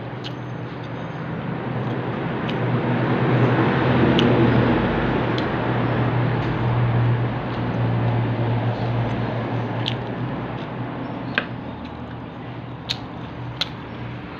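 Someone eating: chewing and wet mouth sounds with small clicks, more of them in the second half. Under it runs a steady low hum and rushing noise that swells for a few seconds and then eases.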